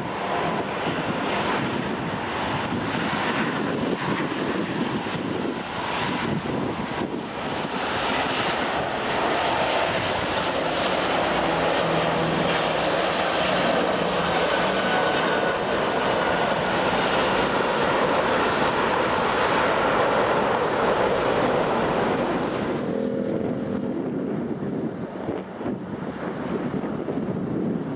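Boeing 777 twin jet engines at take-off thrust, a steady dense jet noise that swells as the airliner accelerates down the runway and lifts off. About 23 s in it cuts abruptly to quieter wind noise on the microphone.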